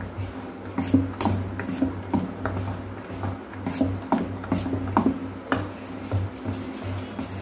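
Spoon stirring thick fermented rice batter for appam in a steel bowl, mixing in salt: irregular wet scrapes and light knocks against the bowl, several a second. A low steady hum runs underneath.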